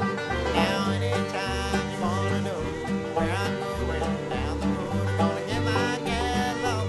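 Background music: an upbeat country or bluegrass tune with plucked strings over a steady, evenly pulsing bass.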